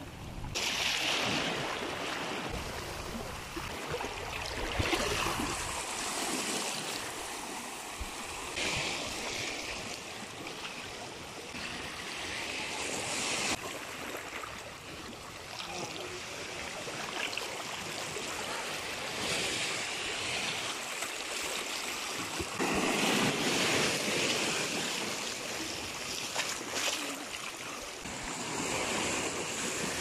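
Small ocean waves washing into a narrow rocky channel and foaming over the rocks: a continuous rush of water that swells and eases every few seconds as each wave comes in.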